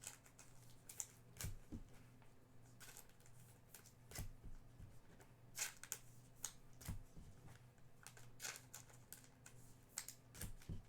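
Faint, scattered rustles and clicks of trading cards and packs being handled, over a faint steady low hum.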